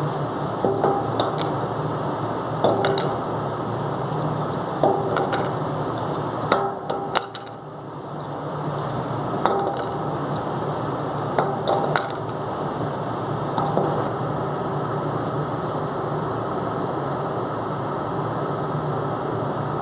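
Steady rumbling background noise with a low hum on the deck of a ship at anchor, broken by about ten short squeaky chirps a second or two apart.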